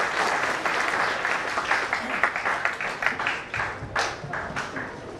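Audience applauding: dense clapping that thins out to scattered individual claps over the last couple of seconds.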